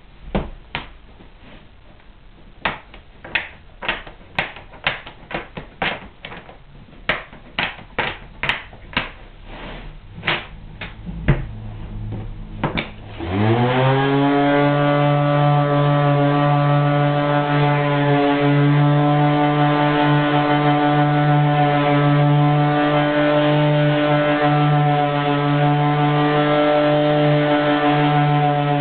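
A run of sharp clacks and knocks for about the first half, then an electric random orbital sander with a felt buffing pad starts up, its pitch rising briefly before it settles into a steady running hum as it buffs the oiled wooden blocks.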